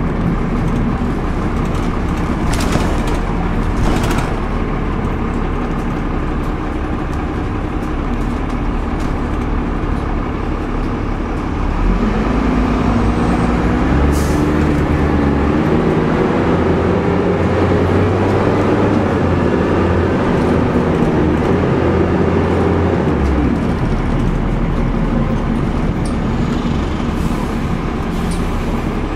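Dennis Dart SLF single-deck bus's diesel engine heard from inside the saloon, running steadily with a few sharp clicks. About twelve seconds in it grows louder and rises in pitch as the bus pulls away, then settles back about ten seconds later.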